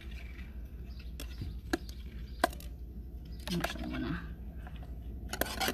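A few small, sharp clicks and ticks from fine jewelry wire and a small stone being handled and twisted by hand, over a steady low hum.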